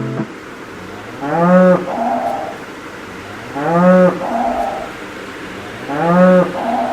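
A cow mooing three times, evenly spaced about two seconds apart. Each moo rises and falls in pitch and ends in a shorter, rougher tail.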